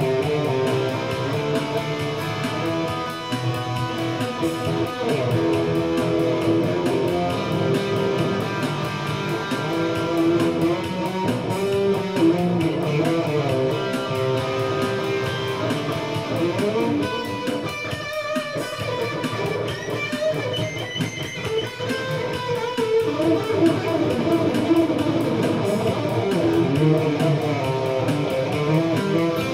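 Electric guitar playing an instrumental passage of a song, notes and strummed chords with no singing.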